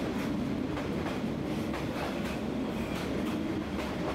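Train passing close by along the street track, a steady rumble with repeated clacking of the wheels over the rails.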